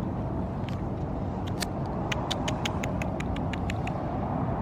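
Steady low rumble of a vehicle. In the middle comes a quick run of about a dozen sharp ticks, several a second.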